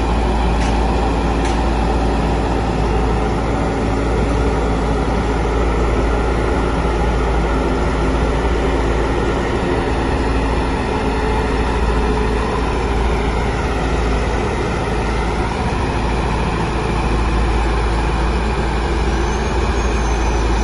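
MC10 single-drum road roller's diesel engine running steadily at a constant drone, with a deep low rumble.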